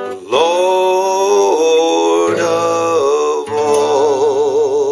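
A man's voice sings the hymn's closing notes on three drawn-out notes, the last one held with vibrato, over acoustic guitar.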